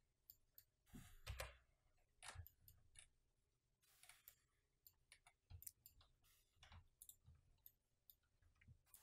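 Faint, irregular clicks of a computer mouse and keyboard, many spread unevenly over near silence.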